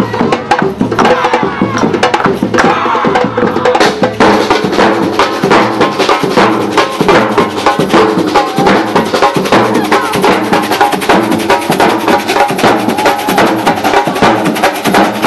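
Batucada drum ensemble playing a fast, dense rhythm, large bass drums struck with sticks under a steady pulse of many strokes a second. About four seconds in, a brighter, busier layer of high strokes joins and the groove thickens.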